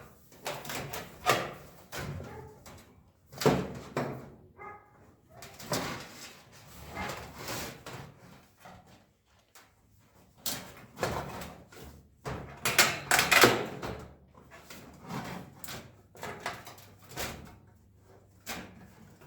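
Sheet-metal parts of a toaster oven's shell knocking, clanking and scraping irregularly as they are handled and fitted back together, with a busy run of clanks about two thirds of the way through.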